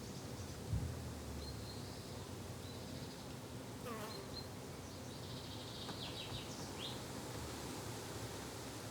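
Flying insects buzzing steadily, with short high bird chirps scattered through the middle and a brief low thump just under a second in.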